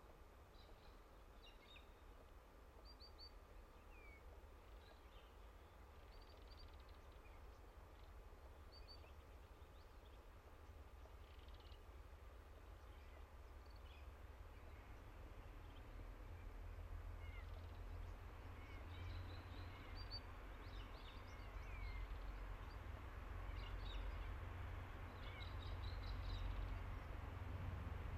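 Faint scattered bird calls over a low rumble that grows steadily louder through the second half: the distant approach of a train hauled by four ALCo 48 class diesel-electric locomotives.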